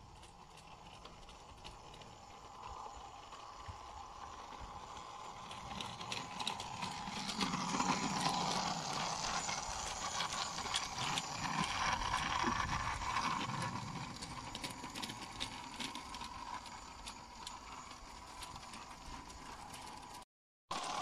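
G-scale model Simplex locomotive running along garden railway track: a steady motor-and-gear whine with a fast clicking rattle of wheels on the rails. It grows louder as the loco passes close by in the middle and fades as it runs away.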